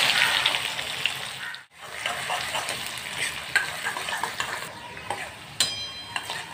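Chopped onion frying in hot oil with mustard seeds in a kadhai, the tempering (phodni) for a curry. It sizzles loudest at first, then settles as a steel ladle stirs it, with scattered sharp clicks of the ladle against the pan.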